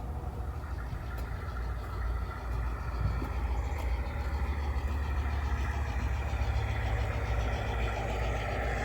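Garden-railroad model locomotive running slowly with a steady engine-like hum.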